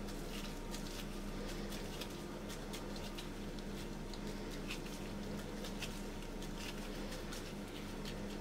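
Disposable-gloved hands kneading and pressing soft mashed potato into a cup shape: faint soft squishes and many small sticky clicks, scattered irregularly, over a steady low hum.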